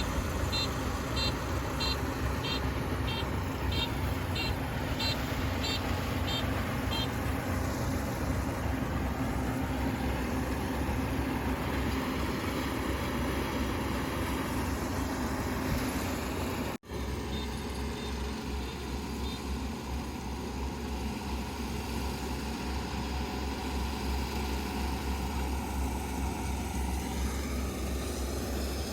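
Kubota ER470 rice combine harvester's diesel engine and threshing machinery running steadily while it harvests. A row of evenly spaced high beeps, about two a second, sounds for the first several seconds, and the sound cuts out for an instant a little past the middle.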